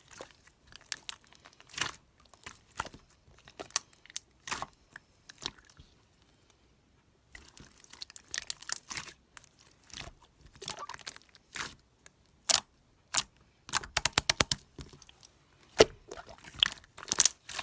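Slime being squeezed and poked by hand, giving irregular crackling clicks and pops, with a brief pause about six seconds in.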